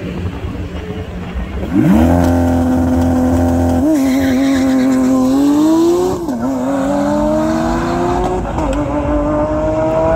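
Lamborghini Aventador SVJ's V12 racing from a standing start. The revs jump sharply about two seconds in and hold steady, then the engine pulls away with the pitch climbing, broken by three quick upshifts.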